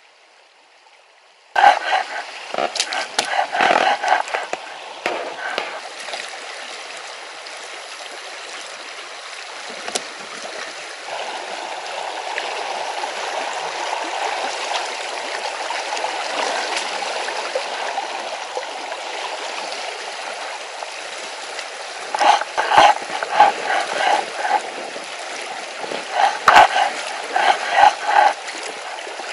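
Rushing river water through a riffle, a steady noise that starts abruptly and grows louder about eleven seconds in. Two clusters of rapid, pitched pulsing sit over it, one early and one near the end.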